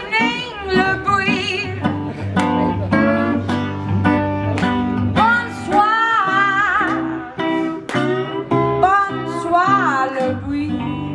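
A woman singing blues while playing a cigar box guitar, her sung phrases wavering in pitch over the plucked notes.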